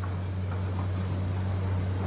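Force Gurkha's diesel engine running with a steady low drone as it drives through floodwater, with a wash of water noise around it.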